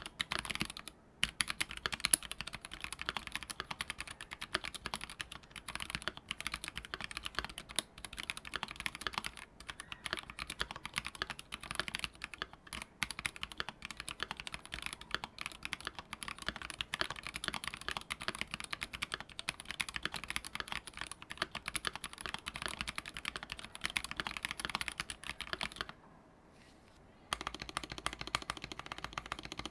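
Fast, continuous typing on a SAKA68 mechanical keyboard with a brass plate, unlubed stock Crinks switches and GMK Minimal ABS keycaps. The case has no foam, so the keystrokes sound clacky rather than thocky. The typing pauses briefly about four seconds before the end, then starts again.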